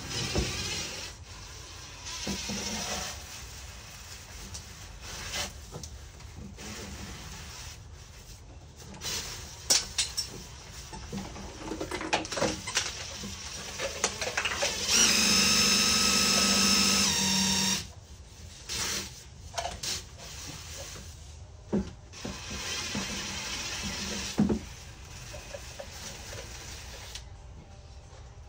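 A small electric motor whirs steadily for about three seconds in the middle, amid scattered clicks and knocks of handling.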